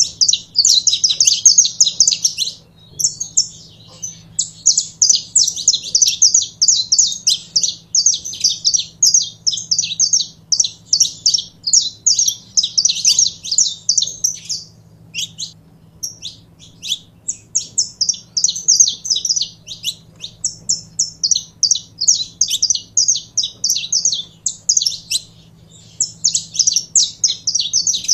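Saffron finch singing: long phrases of rapid, sharp, high chirped notes, each run lasting several seconds, broken by short pauses.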